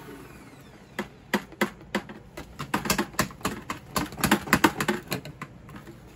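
A run of irregular sharp clicks and knocks, several a second and thickest towards the middle, as of hard objects being handled and tapped together.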